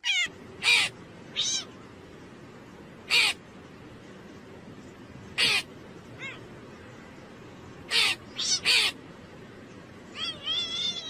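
A cat meowing in short, high calls, spread out one by one, then a quicker run of wavering meows near the end, over a steady hiss.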